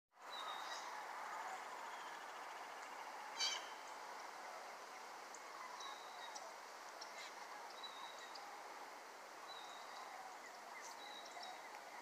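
Distant calling of a large migrating flock of birds high overhead, a faint steady chorus of many overlapping calls. A short high note repeats every second or two, and a brief sharp sound about three and a half seconds in is the loudest moment.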